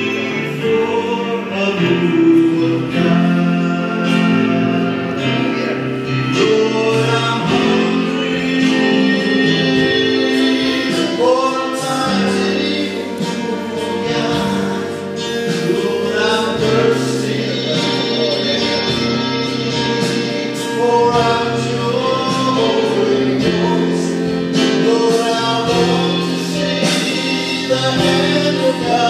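A gospel worship song with group singing over long, held musical chords.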